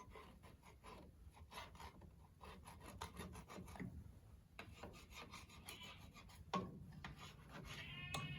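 A small chisel scraping the deck of a Rumely 6A engine block between the studs and cylinders, in short, faint, irregular strokes, cleaning the surface to check it for cracks.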